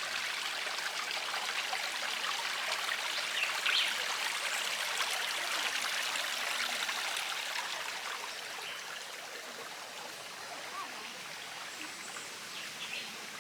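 Shallow river water running and trickling in a steady rush. It eases slightly about eight seconds in.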